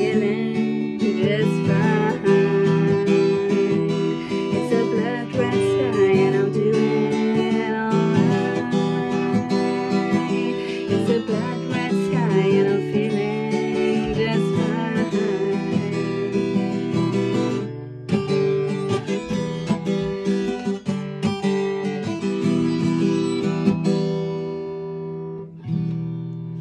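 Acoustic guitar strummed steadily through a song's outro, with a brief break about two-thirds of the way in, ending on a final chord left to ring out and fade.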